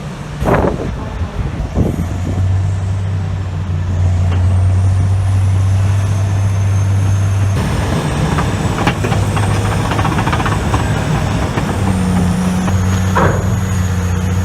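A heavy machine's engine running with a steady low drone. The sound changes abruptly a couple of times.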